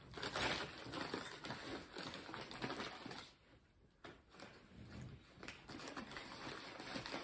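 Paper and wrapper rustling as fast-food sandwiches and a paper takeout bag are handled, with irregular crinkles and crackles and a brief lull just past the middle.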